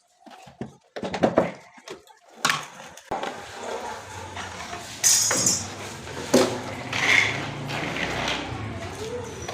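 Knocks and clatter of hard objects being handled and set down, several sharp clanks spread through, over a faint low hum.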